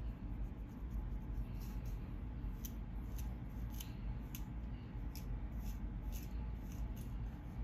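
Black fine-toothed plastic comb scratching against a scalp through hair in short repeated strokes, about two a second, raking up dandruff flakes.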